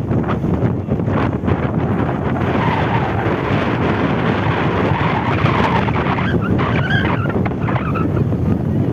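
Strong wind buffeting the microphone, a steady loud rumbling rush, with a few faint calls of voices about seven seconds in.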